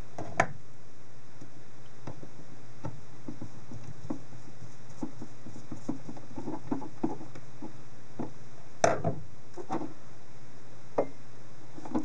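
Light clicks and taps of a metal laptop drive caddy, a solid-state drive and small screws being handled and screwed together with a hand screwdriver. A sharper knock comes about half a second in and another near nine seconds.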